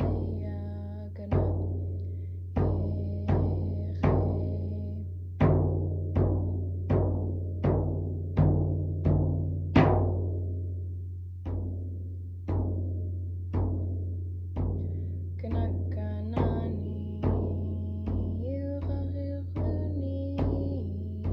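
Yup'ik frame drum beaten in a steady beat, about one stroke every 0.7 seconds, each stroke ringing out low, with a short break about halfway through. A voice sings over the drum at the start and again in the last few seconds.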